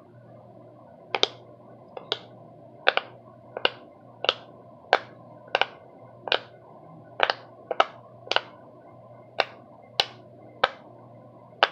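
A run of sharp snapping clicks, about one every two-thirds of a second and some in quick pairs, over a faint low hum.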